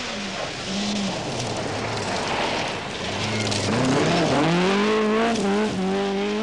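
Ford Escort Mk2 rally car's four-cylinder engine revving hard on a gravel stage, its pitch climbing and dropping back several times with the gear changes, over a hiss of tyres on gravel.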